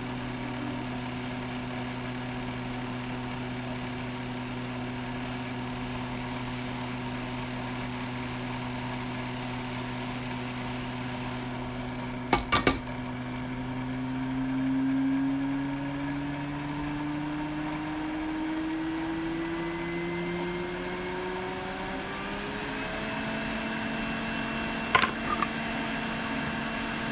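Blower fan of a hot air rework station humming steadily. Its pitch rises over several seconds about halfway through as the airflow is turned up. There are a few sharp clicks near the middle and again near the end.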